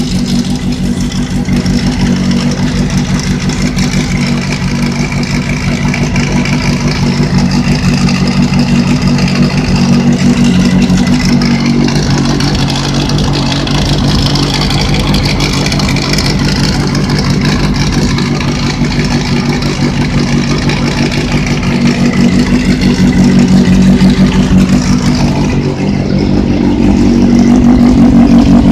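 Motorcycle engine running with a rattle from next to the front sprocket, which the owner suspects is a failing bearing. The engine speed swells and eases slightly a few times.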